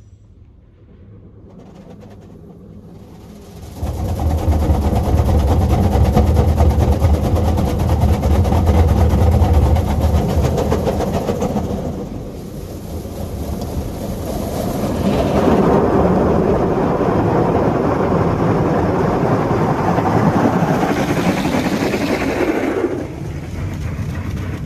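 A Petit AccuTrac 360i touch-free car wash heard from inside the car: its spray arm sweeps around the car, the jets spraying water and coloured foam onto the roof and windows. It comes in two loud passes, the first with a deep rumble and the second a harsher rush, each dropping off fairly suddenly.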